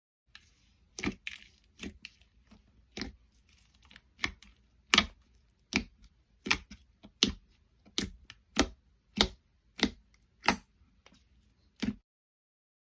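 Slime being pressed and squeezed by hand, giving sharp, wet pops and clicks, about one every two-thirds of a second, that stop about twelve seconds in.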